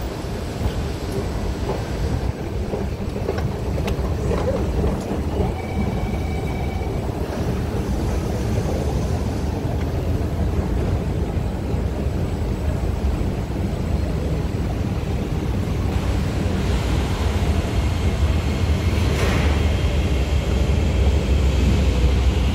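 Steady low rumble of an MRT train in the station, growing louder over the last several seconds.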